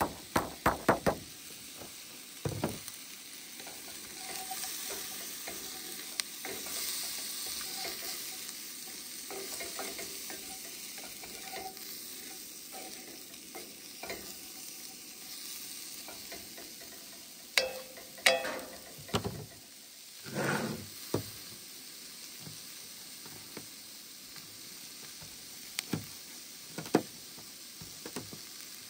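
Diced vegetables sizzling in a hot cast-iron skillet, with a wooden spatula scraping and knocking against the pan as they are stirred. A few sharp clicks near the end come from a knife cutting on a plastic cutting board.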